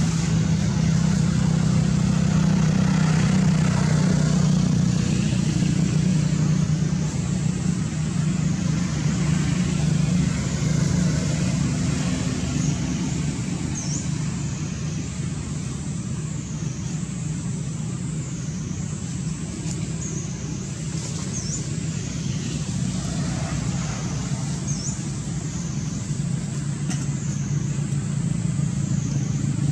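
Steady low hum of a motor vehicle engine running, easing slightly after about seven seconds, with a thin high whine above it that dips and rises about every two seconds.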